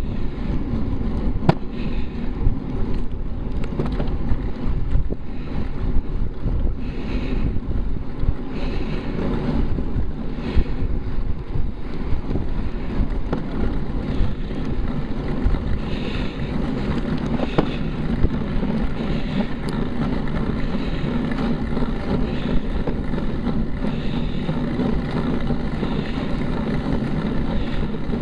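Steady wind rush and low rumble on the microphone of a bicycle-mounted camera moving at about 15 mph.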